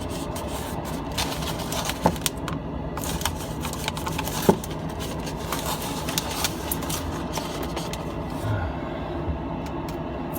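Scattered light clicks and rustles as the refrigerator's plastic air damper and its tape are handled and pressed into place, with sharper clicks about two seconds and four and a half seconds in. A steady low hum runs underneath.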